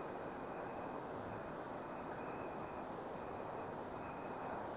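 Steady low-level background hiss and room noise of a talk recording, with a faint high tone that pulses on and off.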